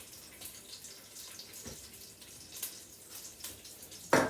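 Lamb shanks browning in hot olive oil in a pot: a steady sizzle with scattered crackling pops. A loud thump sounds near the end.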